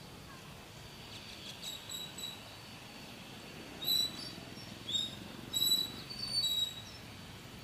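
Small birds perched on a fence chirping: a few soft chirps, then a run of louder, sharper chirps from about four seconds in.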